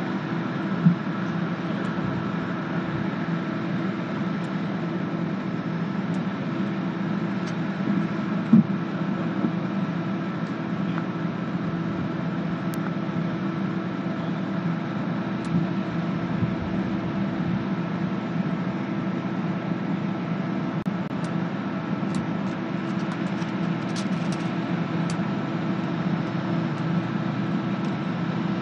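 Steady mechanical hum holding several constant tones, with two brief knocks in the first nine seconds and faint high ticks near the end.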